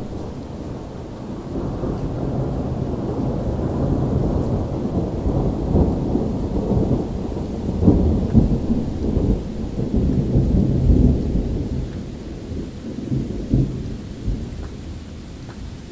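A long rolling rumble of thunder that swells over the first few seconds, is loudest about halfway through and dies away near the end, over steady rain.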